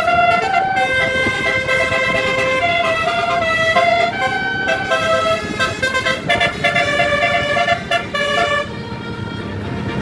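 Bus telolet horn: a multi-tone air horn playing a quick melody of stepped notes, which stops about eight and a half seconds in. Engine and road rumble continue underneath.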